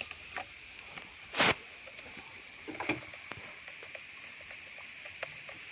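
Small clicks and taps of a screwdriver and a 3D-printed rail riser being handled on an airsoft rifle's top rail, with one louder short knock about a second and a half in and a couple more near the three-second mark, over a steady high hiss.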